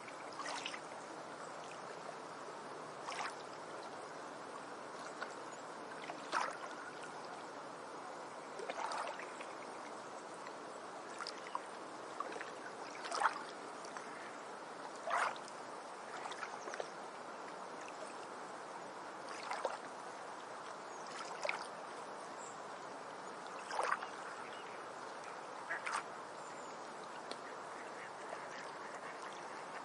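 Ducks quacking: about a dozen short single calls spaced every couple of seconds, over a steady rush of background noise.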